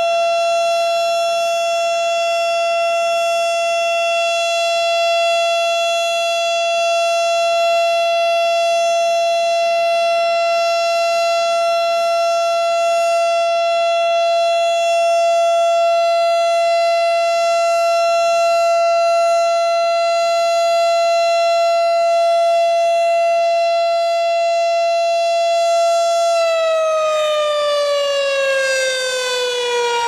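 Federal Signal STH-10 outdoor warning siren sounding a steady single tone in a test. Near the end it shuts off and begins its long coast-down, the pitch gliding steadily lower.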